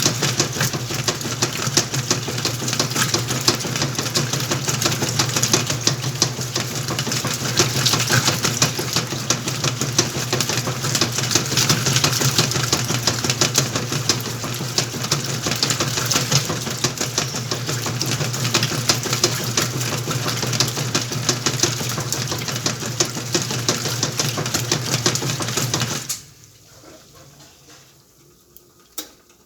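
Whirlpool washing machine running: a steady motor hum under a fast, dense mechanical clatter. It stops abruptly about 26 seconds in, leaving only faint sound and a single click near the end.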